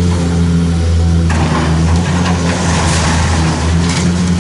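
Diesel engine of a long-reach demolition excavator running steadily, with a rush of crumbling, clattering debris starting about a second in as its boom tears at the brick building.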